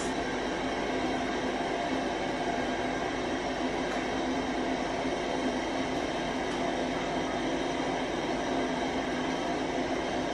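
Steady mechanical hum, an unchanging drone with no breaks.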